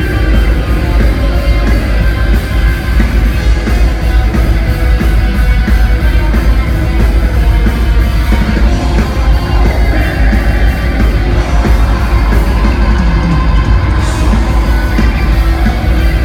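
Black metal band playing live and loud, with vocals over distorted guitars, bass and drums; the recording is dense and heavy in the low end.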